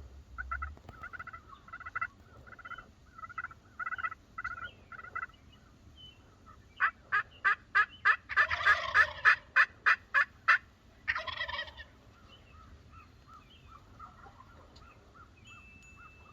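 Wild turkeys calling: a run of evenly spaced yelps, then loud gobbling in rapid rattling bursts about midway, followed by softer yelping.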